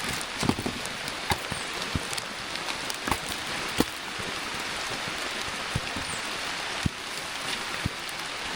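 Steady rain falling, an even hiss with sharp ticks of single drops scattered through it.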